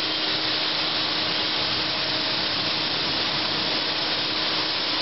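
Steady machine noise: an even rushing noise with a constant low hum running through it, unchanging throughout.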